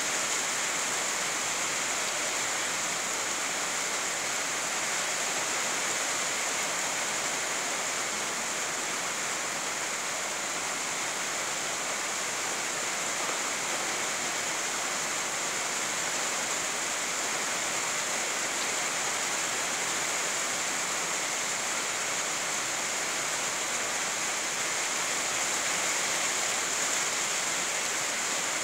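Steady rainfall, an even, unbroken hiss.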